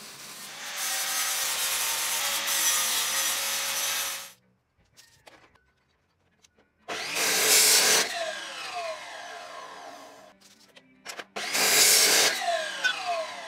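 Electric arc welding on a steel frame, a steady hiss for about four seconds. After a short pause, an abrasive chop saw cuts steel square tube twice, each cut followed by a falling whine as the blade winds down.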